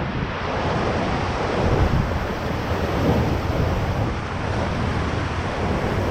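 Ocoee River whitewater rushing steadily around a raft running a wave train, with low wind rumble on the microphone.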